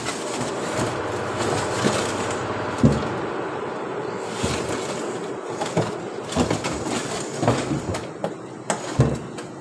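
Aluminium transmission case and parts of a CVT scraping and clunking on a steel workbench as they are handled. A rough scraping fills the first half, with sharp metal knocks scattered through, the strongest about three seconds in and near the end.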